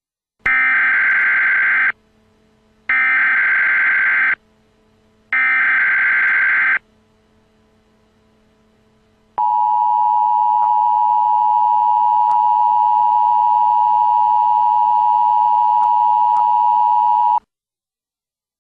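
Emergency Alert System broadcast: three short screeching bursts of the digital SAME header, then a steady, loud attention-signal tone that lasts about eight seconds and cuts off sharply.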